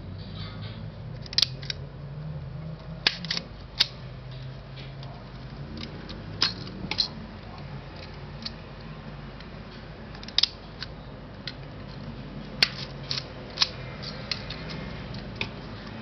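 Yashica Electro 35 CC rangefinder camera being handled: more than a dozen short, sharp mechanical clicks at irregular intervals as its controls are worked and the body is turned in the hands.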